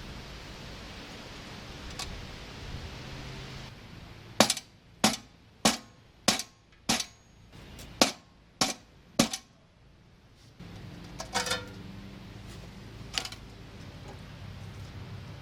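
A run of about eight sharp clicks or knocks, a little over half a second apart, followed later by a few more, over a low background hum.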